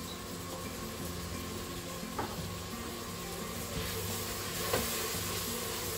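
Onions and mushrooms sizzling in the inner pot of a Crockpot multicooker on sauté/browning mode as Worcestershire sauce goes in. A spatula stirs the pot, knocking against it twice, and the sizzling grows louder about four seconds in as the stirring starts.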